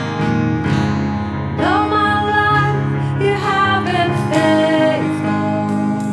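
Live worship song: acoustic guitar strumming chords with band accompaniment, and a female lead vocalist singing a slow line of a few held, sliding notes starting about a second and a half in and ending near the end.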